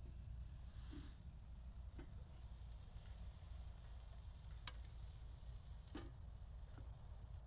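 Faint sizzling of an egg and bacon frying in a pan on a stainless steel wood stove, with a few sharp clicks and a steady low rumble underneath.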